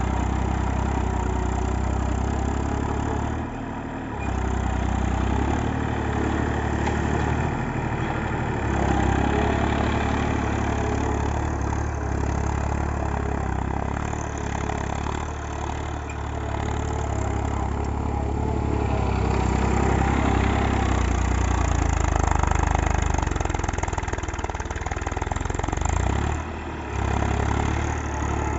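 Massey Ferguson tractor's diesel engine running under load as it drives over piled paddy straw to thresh the grain. The level rises and falls as the tractor moves about, with brief dips about four seconds in and near the end.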